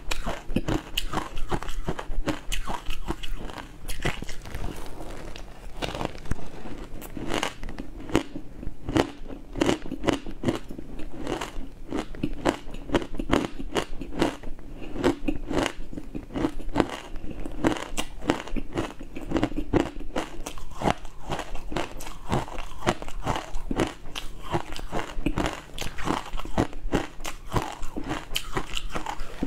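Close-miked mouth crunching and chewing of frozen matcha ice: a dense, steady run of sharp crunches as the ice is bitten and ground between the teeth.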